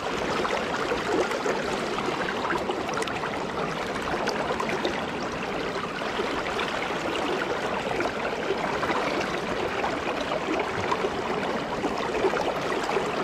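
River water flowing steadily close by, a continuous rushing with small irregular splashes and trickles.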